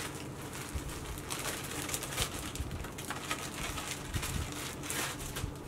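Clear plastic packaging of a pair of socks crinkling and rustling as it is handled and pulled open, in short irregular crackles, over a faint low hum.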